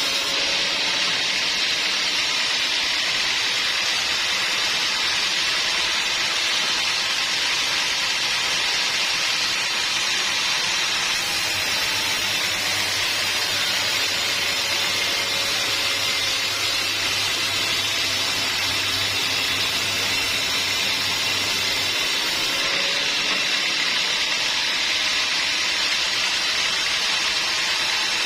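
Sawmill saw cutting through a teak log, a steady high hiss of blade in wood. A low hum comes in about a third of the way through and stops about three quarters of the way.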